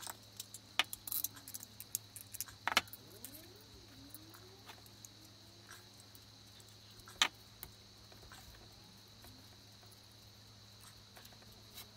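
Small metal clock fittings clicking and clinking against a wooden clock body as the clock movement and hands are handled and fitted: a quick run of clicks in the first few seconds, then one sharp click about seven seconds in. A steady electrical hum runs underneath.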